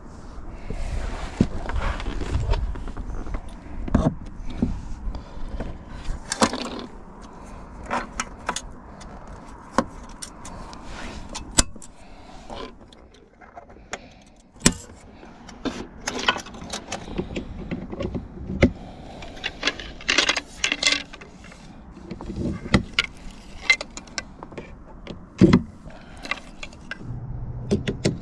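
Fishing gear being handled and set up: irregular clicks, clinks and knocks of metal and plastic parts, with a short lull about halfway through.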